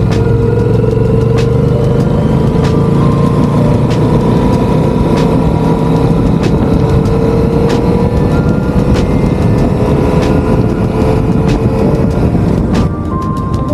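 Motorcycle running at road speed under heavy wind and road noise, its engine note climbing slowly and steadily, with sharp ticks every second or so; the sound drops briefly near the end.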